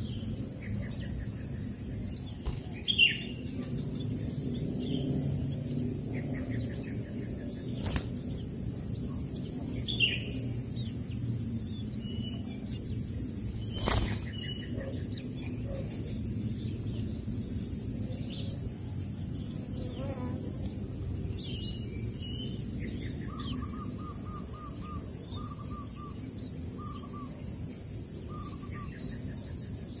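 Scattered bird chirps over a steady high insect drone and a low background hum. Near the end there is a short run of quick repeated notes, and two sharp clicks come partway through.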